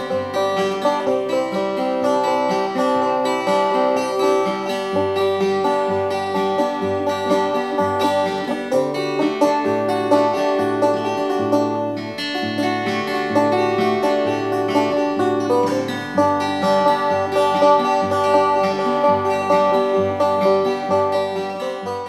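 Instrumental music of picked plucked strings over a steady, stepping bass line, easing down slightly near the end.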